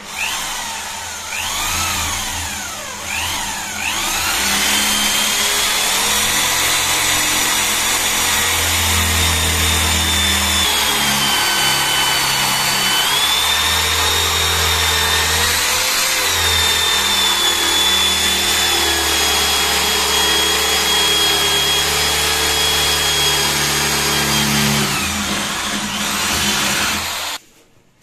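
Electric drill with a 16 mm flat spade bit boring into the edge of a wooden door. It goes stop-start for the first few seconds, then runs steadily with its whine shifting in pitch as it cuts, and stops abruptly near the end.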